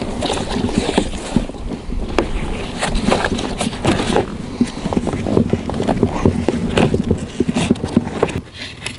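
Irregular knocks, rustles and creaks of gear being handled in an inflatable PVC boat: a strap and the oar shifting and bumping against the boat.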